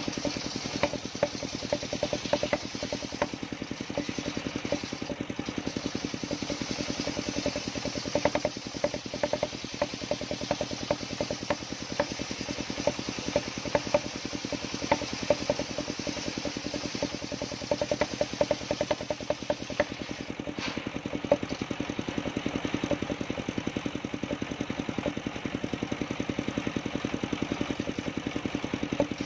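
Engine-driven circular sawmill running steadily, its engine giving a rapid, even knocking beat over a steady hum, while the large saw blade rips lengthwise through a coconut palm trunk.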